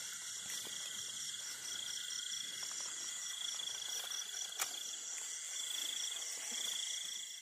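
Crickets calling at night: a steady high trill, and over it a second, higher chirping that pulses evenly. One sharp click sounds a little past halfway.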